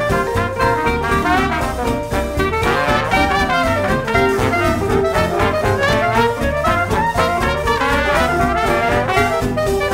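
Background jazz music led by brass horns, playing steadily at full level.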